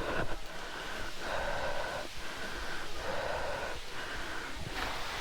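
Heavy, fast breathing of a hiker out of breath on a steep climb, about one breath a second.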